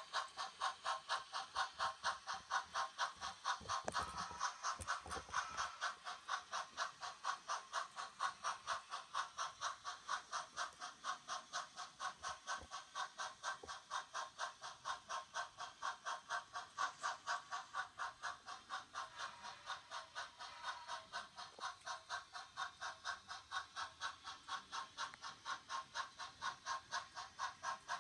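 Model train running around its track, with a steady mechanical clicking about three times a second.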